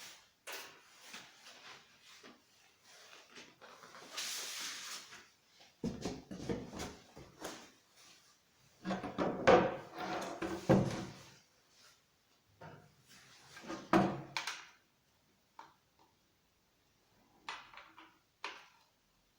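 Irregular knocks, clunks and scrapes of objects being handled, with a short hiss about four seconds in and heavier clunks in three clusters.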